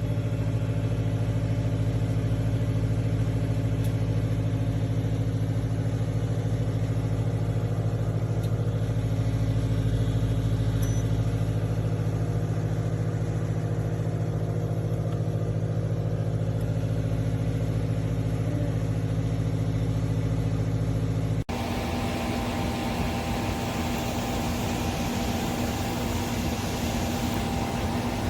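COSORI air fryer toaster oven running, its fan giving a steady low hum. About 21 s in the sound cuts abruptly to a hissier, higher whir.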